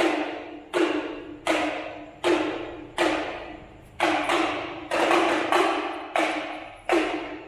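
A drum struck with single hits at a steady pace, about one every three quarters of a second, each ringing out before the next: a drum being sound-checked through the mixing desk.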